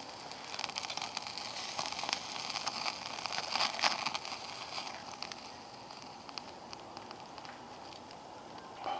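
Food frying in a hot pan: a steady sizzle with many small crackles and pops, busier in the first half and settling to a quieter sizzle after about five seconds.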